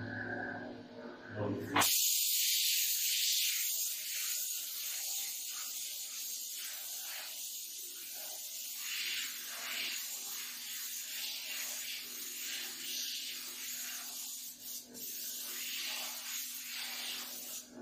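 Small gravity-feed paint spray gun on a compressed-air hose, hissing steadily as it sprays paint onto a wall. The hiss starts about two seconds in and swells and dips slightly as the trigger is worked.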